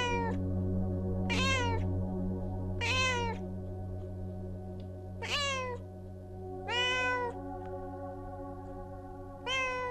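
Pregnant Bengal cat in labor meowing loudly, six short calls that rise and fall in pitch, about one every one and a half seconds, with a longer gap around the middle.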